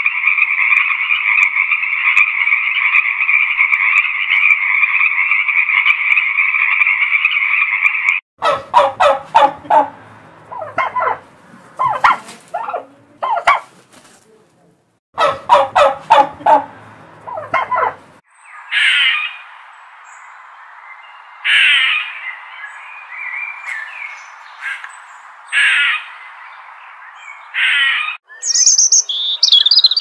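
A frog calling in a steady trill for about eight seconds, then a turkey gobbling in two bursts of rapid notes. After that come sharp bird calls every few seconds over a steady background noise, and high bird chirps near the end.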